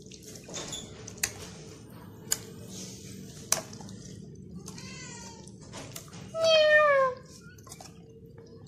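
A cat meowing twice: a faint short meow about five seconds in, then a louder meow falling in pitch a second later. Underneath is the soft, steady swish of cream being swirled by hand in a metal pot, with three sharp clicks in the first few seconds.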